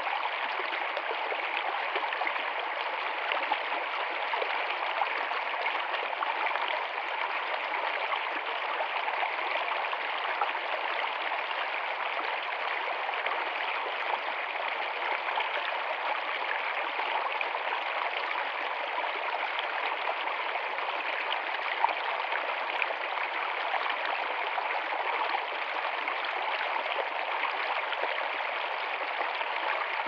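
Shallow stream running fast over rocks, a steady babbling and splashing rush of water.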